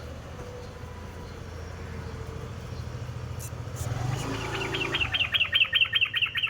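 Yellow-vented bulbul (trucuk) calling: a rapid chattering run of evenly spaced notes, about eight a second, starting about four seconds in and growing louder. A steady low hum runs underneath.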